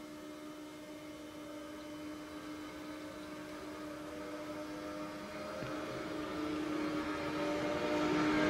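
Czech class 362 electric locomotive (ES 499.1001) hauling passenger coaches on its approach: a steady electric hum under rising rail noise that grows steadily louder, swelling strongly near the end as the locomotive comes close.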